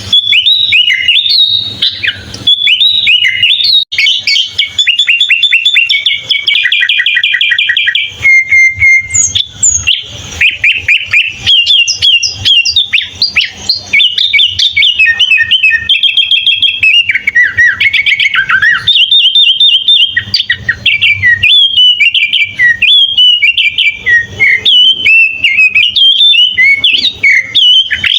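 Sooty-headed bulbul singing an almost unbroken run of varied song: fast trilled notes, chatter and whistled phrases that slide up and down, with short pauses between runs.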